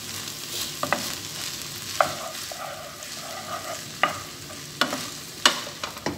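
Wooden spatula stirring fried rice in a nonstick frying pan over a low sizzle, with about six sharp knocks of the spatula against the pan.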